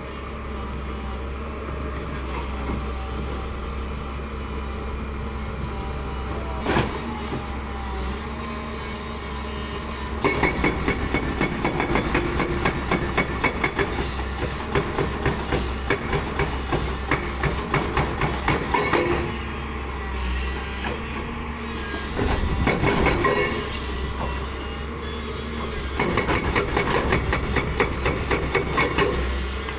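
Demolition work: a machine hums steadily, and about a third of the way in rapid hammering impacts start, several a second. They come in three long runs with short breaks between.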